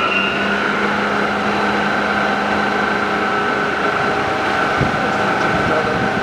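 Monarch Model 613 toolroom lathe running under power, its spindle and headstock gearing turning at a steady speed with a constant gear whine. The pitch rises slightly in the first half-second as the spindle settles at a newly selected speed.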